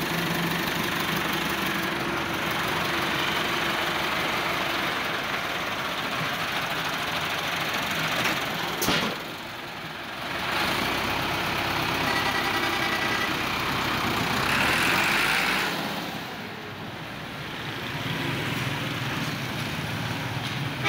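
Massey Ferguson 385 tractor's four-cylinder diesel engine running steadily, with a short sharp click about nine seconds in.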